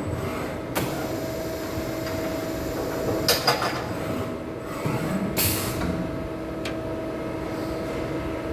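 CNC turning machine with automatic loading and unloading running with a steady hum, broken by a couple of sharp clicks, a brief clatter a few seconds in and a short hiss a little after halfway.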